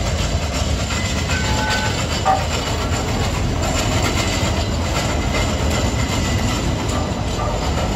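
A United Streetcar-built streetcar passing close by on street track, a steady rumble of its wheels and running gear.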